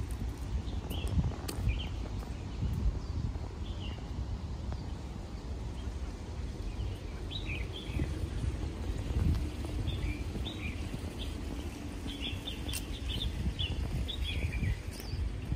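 Small birds chirping in short, scattered calls that grow more frequent in the second half, over a steady low outdoor background and footsteps on stone steps.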